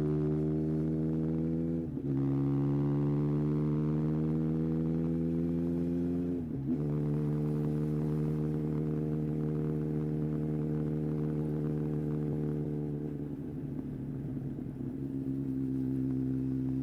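Yamaha XJR1300's air-cooled inline-four engine pulling under load, its pitch climbing and then dropping sharply twice as it shifts up through the gears. It then holds a steady note, dips briefly and rougher near the end, and settles again.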